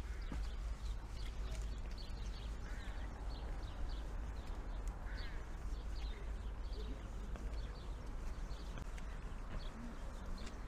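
Horse hooves clip-clopping at a walk, a regular beat of about two strokes a second, over a low steady street rumble.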